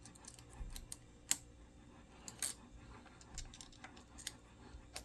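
Irregular small metallic clicks and taps, the loudest about a second and a half and two and a half seconds in, as a hand tool works on a Quad Lock handlebar mount while its vibration damper is tightened.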